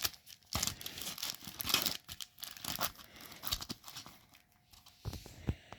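Plastic packaging crinkling and rustling as it is handled, in irregular bursts with a quieter stretch about four seconds in.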